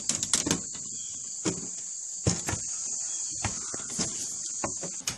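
Hands slapping and pounding on a panel door: a series of irregular knocks and thumps over a steady high-pitched hiss.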